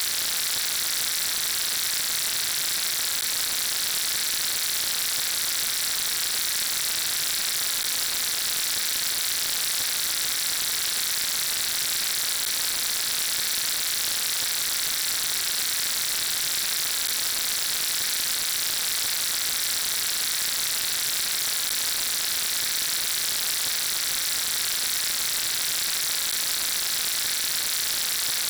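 Steady static hiss like white noise, even and unchanging, with most of its energy in the high range.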